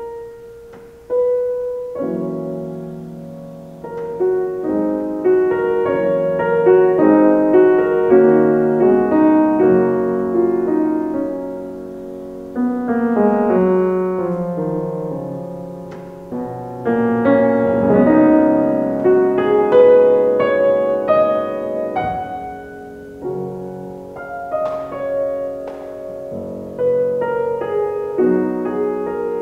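Solo piano playing a slow, gentle piece, with chords and melody notes struck and left to ring.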